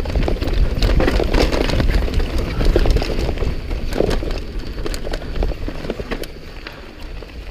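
Mountain bike riding down a rough dirt trail: wind buffeting the microphone, tyres over dirt and rocks, and the bike rattling with many quick clicks and knocks. It eases off after about six seconds.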